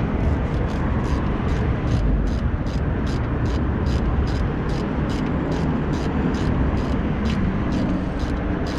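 Ratchet wrench with a 14 mm socket clicking steadily, about three to four clicks a second, as a bolt is turned, over heavy wind rumble on the microphone.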